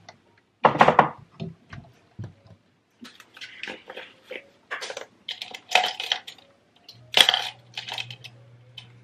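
Kitchen handling noise: glass spice jars clinking and knocking on the counter and cabinet shelf, and plastic measuring spoons rattling as one is pulled from a cup. It comes as a string of sharp clicks and rattles, loudest about a second in and again about seven seconds in, when a low steady hum also starts.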